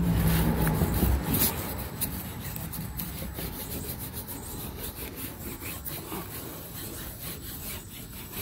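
A hand and a sanding block rubbing over glue-wet cloth on a curved wooden shield board, making a run of irregular scraping strokes that are loudest in the first second or so. The rubbing presses out wrinkles and air bubbles before the wood glue dries.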